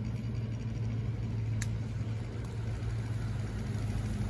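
Lifted pickup truck's engine running as the truck drives slowly past, a steady low drone that grows a little louder near the end.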